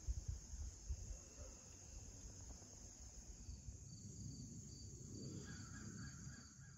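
A steady, faint chorus of crickets and other insects. Low rumble and a few knocks come from the phone being handled. Near the end a rapid pulsing call joins in.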